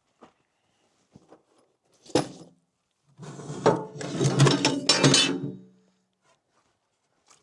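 A sharp knock about two seconds in, then a couple of seconds of clinking and rattling from a box of screws being handled.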